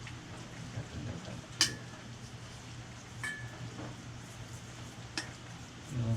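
Small metal bicycle rear derailleur parts and tools clinking as they are handled, three sharp clicks a second or two apart, the first the loudest and the first two ringing briefly, over a steady low hum.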